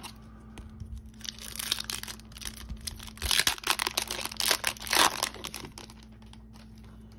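A foil-lined hockey card pack wrapper torn open and crinkled by hand, the crackling building from about a second in, loudest around the middle, and dying away near the end.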